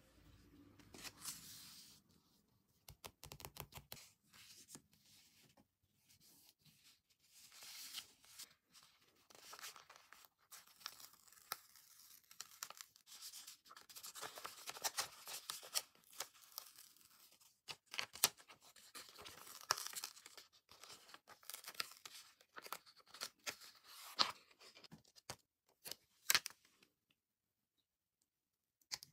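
A sticker being peeled off its backing sheet, with crackling, tearing rustles of the paper in irregular bursts that stop about two seconds before the end.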